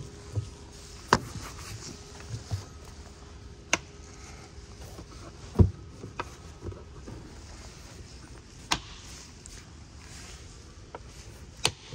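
A handful of sharp plastic clicks and knocks, a second or more apart, as the air filter housing lid of a Hyundai Grand Starex is seated and its clips are snapped shut over a new filter. The loudest click comes about halfway through.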